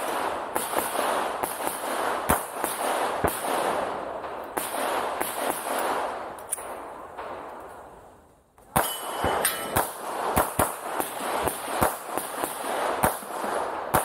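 A string of handgun shots, a dozen or more, irregularly spaced, with a short lull about eight seconds in before a quicker run of shots.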